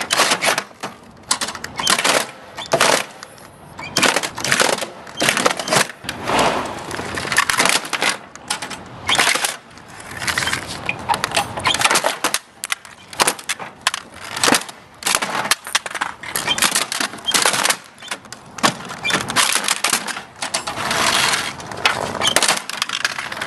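Plastic toy being shredded by lawnmower blades: rapid, irregular cracking and clattering of breaking plastic.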